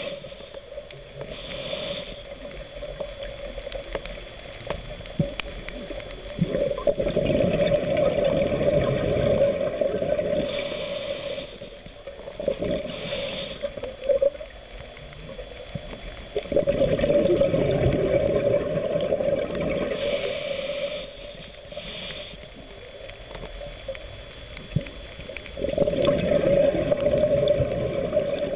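Scuba diver breathing through a regulator underwater: short hissing inhalations, then three long bubbling exhalations.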